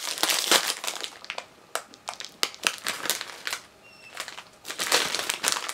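Crinkling and crackling of a plastic snack bag of Herr's Honey Cheese Flavored Curls as it is pulled open, busy at first, sparser for a few seconds in the middle, then busy again near the end.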